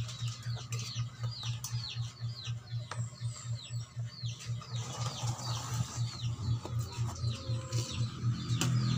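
A bird chirping over and over in short falling chirps, about three a second, over a low throbbing hum.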